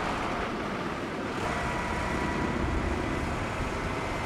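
Road traffic: vehicle engines running as a steady rumble, with a faint thin steady tone coming in about a second and a half in.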